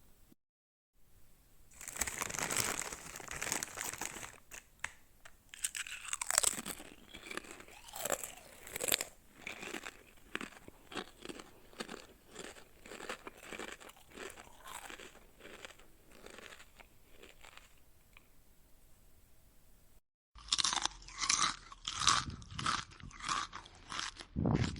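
Someone biting and chewing crunchy chips: a dense run of crunches that slows and fades away. After a short pause a second take begins, with steady crunches about two a second.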